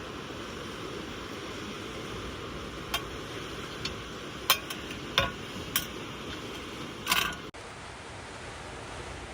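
Steady rush of sea waves, with a few sharp clinks and knocks from objects being handled in the middle, the last a short clatter; the sound breaks off suddenly a little after that and the surf goes on.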